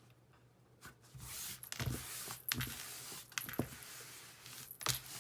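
Faint rustling of paper and card being handled, with a few soft knocks, as the paper backing is worked off an adhesive mounting board.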